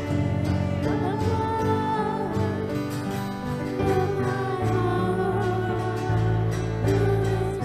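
Church worship song: a voice singing a slow melody over acoustic guitar and steady bass notes.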